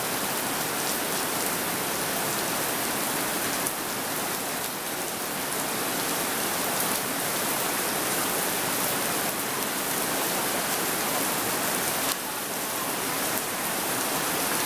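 Heavy rain pouring down on the station platform and its canopy roof: a dense, steady hiss.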